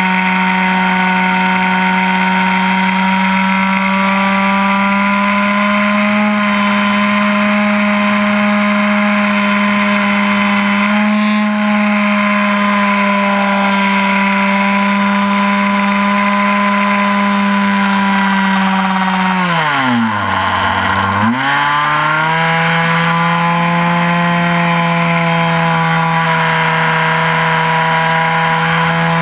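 ASP 61 two-stroke glow engine of an RC plane running at high revs in flight, heard from right behind it on the plane's nose. About nineteen seconds in the revs drop sharply and climb back to full within about two seconds.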